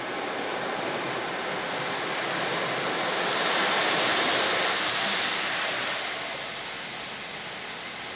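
An automatic car wash working over the car, heard from inside the cabin: a steady rushing noise that swells a few seconds in and eases off after about six seconds.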